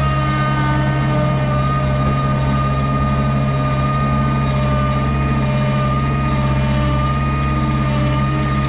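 Skid steer engine running at a steady speed, heard close up from the machine itself, with a steady high whine above it.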